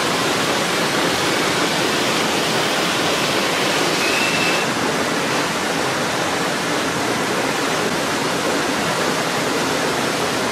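Water from a shallow mountain stream and small waterfall rushing over rocks, a steady, even rush close to the microphone.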